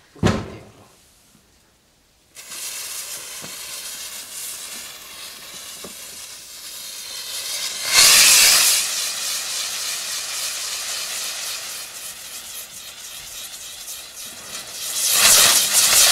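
Chinese lantern firework novelty hanging on a string, hissing as it sprays sparks. The hiss starts suddenly about two seconds in after a short click at the start, runs steadily, and surges louder twice, around eight seconds and again near the end.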